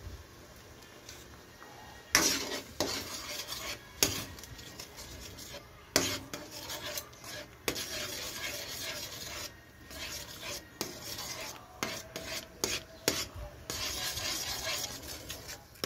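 Metal ladle stirring and scraping around a large metal wok of bubbling sauce, starting about two seconds in. It clanks sharply against the pan about every two seconds at first, then keeps up a steady scrape.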